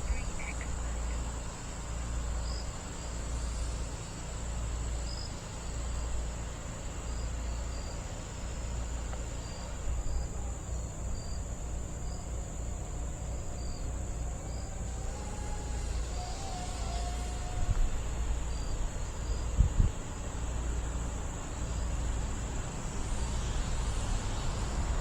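Wind buffeting the microphone in uneven low rumbling gusts, over a steady high-pitched insect chorus with scattered faint chirps.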